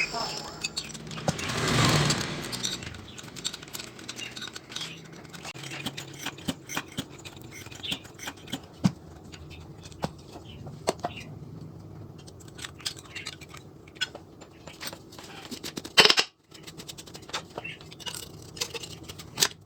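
Irregular light clicks, taps and knocks of hand work on small hard parts, with a louder rush of noise about two seconds in and a short loud burst near the end that cuts off suddenly.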